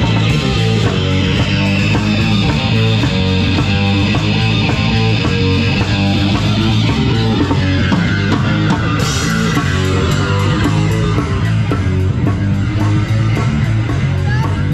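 Live rock music from a street band: an electric guitar played through an amplifier over a Yamaha drum kit, keeping a steady beat.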